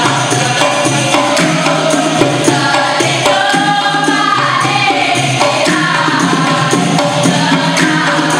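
Dikir barat ensemble performing: a female chorus sings in unison over percussion that keeps a steady beat.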